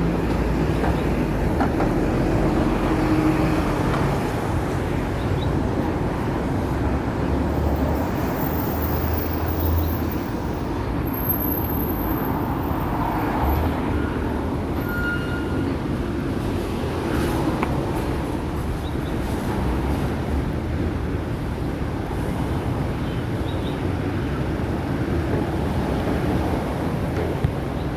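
Hong Kong tram running along its tracks: a steady low rumble with no break.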